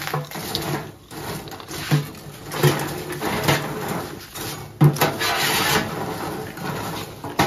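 Metal tongs clacking and scraping against a stainless-steel deep-fryer pan as wheel-shaped flour snacks are stirred in hot oil. A sizzling hiss from the frying runs underneath, with several sharp clacks.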